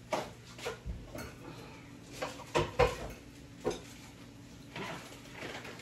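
A fork clinking and tapping against a plate in a series of short, irregular clicks, with the loudest, heavier knocks a little before the middle.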